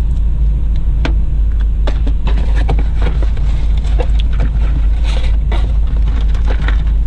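A steady low rumble under scattered light clicks and crinkles of plastic packaging, as packs of replacement light bulbs are handled.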